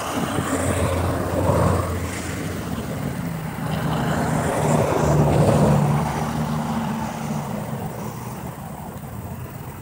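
A passing engine with a low hum, growing louder to a peak about five seconds in and then fading away.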